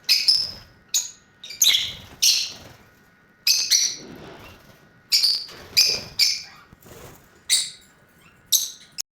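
Lovebirds giving shrill, short chirping calls, about a dozen in a row at uneven intervals.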